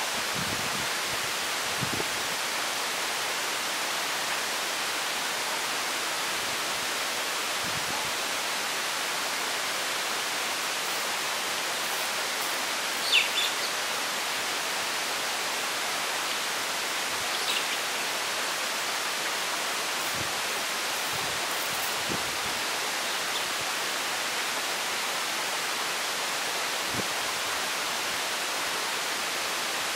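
Steady hiss throughout, with a single brief high peep from one of the young birds about halfway through and a fainter one a few seconds later; a few faint low thumps.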